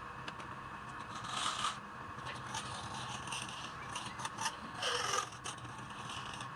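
Wood lathe running steadily while a turning tool scrapes against the spinning workpiece in several short bursts.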